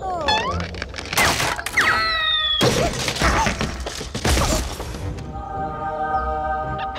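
Cartoon music with comic sound effects: short sliding pitched squeaks and several sharp hits and clatters in the first five seconds, then a steady held chord from about five seconds in.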